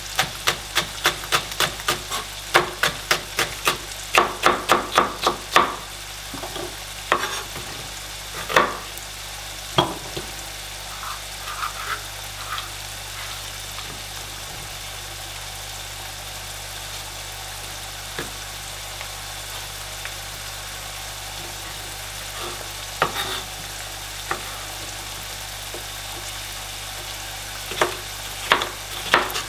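Chef's knife chopping bell pepper on a plastic cutting board: a quick run of chops for about the first six seconds, a few single chops after that, and another run near the end. Under it, butter and sunflower oil sizzle steadily in a pan on the hob.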